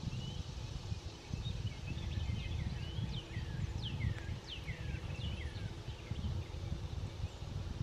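Birds calling: quick, high chirps that each sweep downward in pitch, coming thickest about three to five seconds in, over a steady low rumble.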